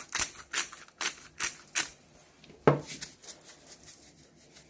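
Pepper being ground over the raw fish: a quick series of dry, gritty clicks, about two or three a second, that stop about two seconds in. A single louder knock follows near the three-second mark.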